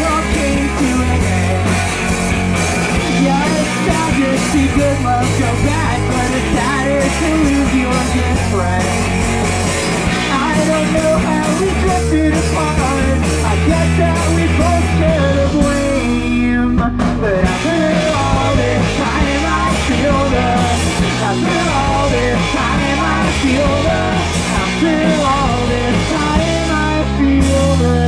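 Live rock band playing a song, with heavy bass notes throughout and a short break in the low end about halfway through.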